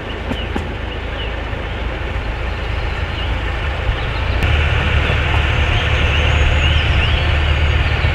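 Diesel locomotive of a 12-inch gauge miniature railway running as it hauls a passenger train away along the track, a steady low drone that grows louder about halfway through.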